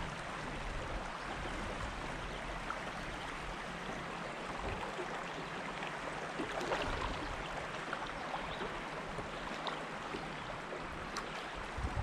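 Steady wash of a shallow river's current running over rocks and gravel.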